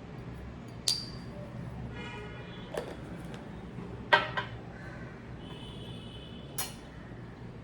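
Dishes and glassware being handled and set down: a few sharp clinks, the first about a second in with a brief ring, a louder pair close together around four seconds, and one more near the end, over a low steady hum.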